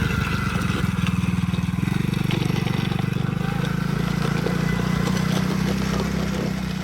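Tao Tao 110cc ATV's single-cylinder four-stroke engine running steadily as the quad is ridden, easing off a little near the end.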